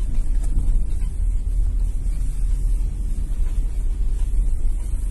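Steady low rumble of a car driving, heard from inside its cabin.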